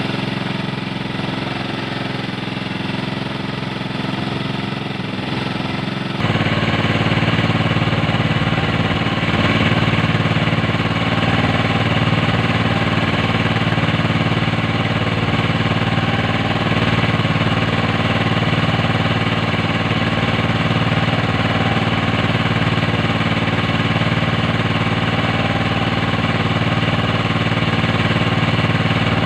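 An engine aboard an outrigger fishing boat running steadily at an even speed. It gets suddenly louder about six seconds in.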